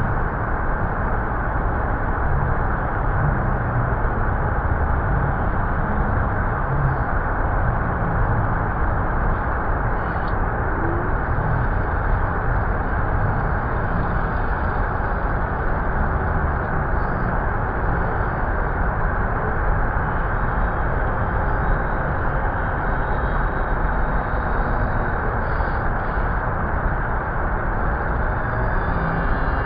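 Steady rush of water pouring over Niagara Falls, an unbroken noise without change.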